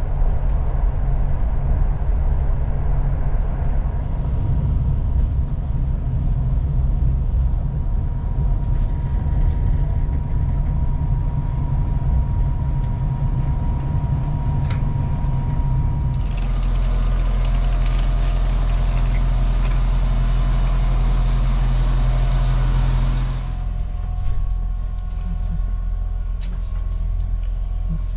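Running noise inside a passenger train coach: a steady low rumble from the wheels and rails, with a thin steady whine from a few seconds in until about two-thirds of the way through. The sound then changes abruptly to a louder hiss over the rumble. About 23 seconds in it drops to a quieter low hum.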